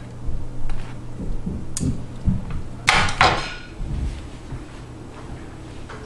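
Kitchen handling noises: dishes and utensils knocking, with a louder clatter about three seconds in, over a low steady hum.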